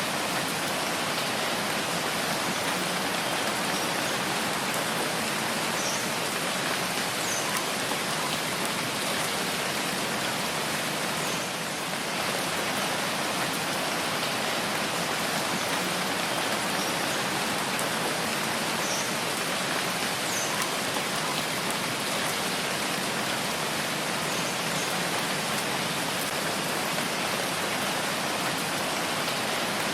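Steady rain falling, a dense even hiss of raindrops with a few faint drips standing out.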